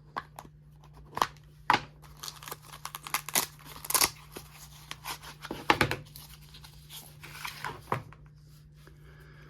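Packaging being torn open and crinkled by hand: irregular tearing, rustling and sharp clicks.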